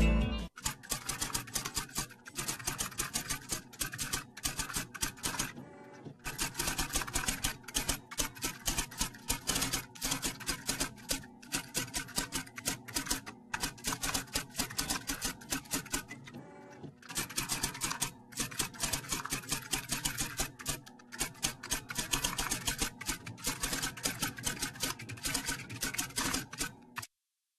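Typewriter-style typing sound effect: rapid key clicks in runs of a few seconds, broken by short pauses, stopping shortly before the end.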